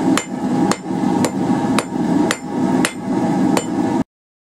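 Hand hammer striking a glowing quarter-inch round steel bar on an anvil, about two blows a second, each with a short metallic ring, drawing out a taper with half-on, half-off blows. The sound cuts off suddenly near the end.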